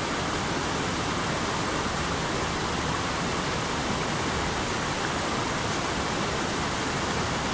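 Steady rush of water pouring from the chute onto a 40-foot steel overshot waterwheel.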